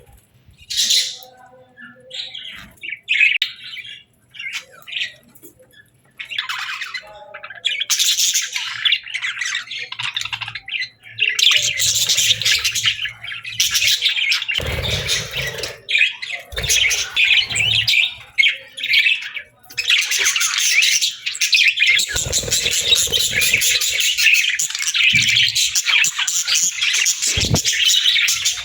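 A flock of budgies chirping and chattering: scattered calls for the first several seconds, then a dense, continuous chatter. A few short low thuds come through around the middle and near the end.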